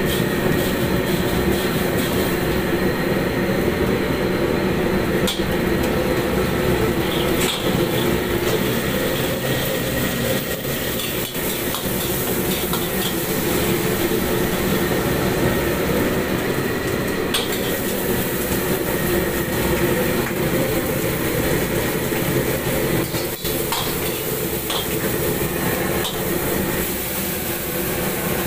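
Commercial gas wok burner running with a steady roar while shredded pork and then noodles are stir-fried in a wok. A metal ladle scrapes and knocks against the wok now and then.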